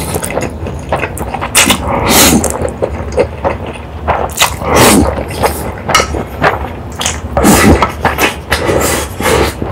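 Close-miked slurping of spicy Buldak instant noodles, with wet sucks in irregular quick runs and chewing between them.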